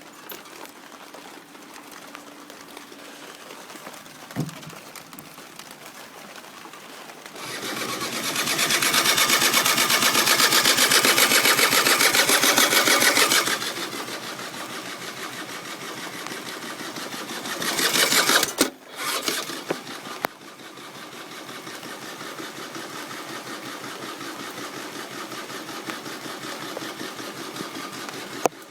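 Electric starter motor cranking the engine of a Peugeot Speedfight 3 moped for about six seconds without it catching, then a second, shorter crank that cuts off abruptly. This is the sign of an engine that won't start. A quieter steady mechanical whirr runs before, between and after the cranks.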